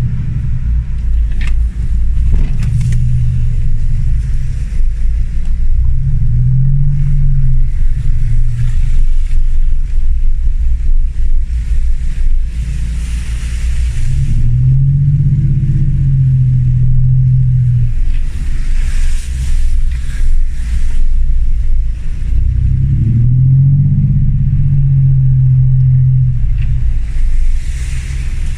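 Land Rover Discovery 1's 300Tdi four-cylinder turbo-diesel working off-road, its revs rising and falling several times over a steady low rumble. A few short bursts of rushing, hissing noise come in between.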